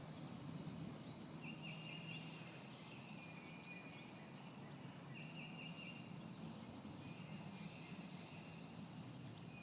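A small bird's short trill of rapid high notes, repeated three times a few seconds apart, over a steady low outdoor hum.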